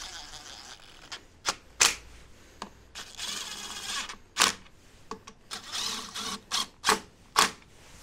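Wrench work on a scooter's muffler mounting bolts: short stretches of rapid ratchet-like clicking, with several sharp metal clinks from the tools and bolts.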